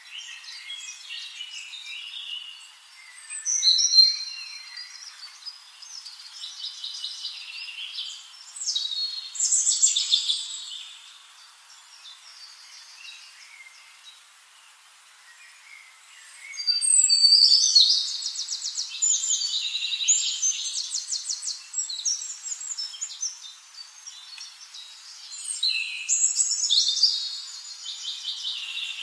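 Birds calling and singing: high chirps and fast trills that come in several bouts, the longest and loudest a little past halfway.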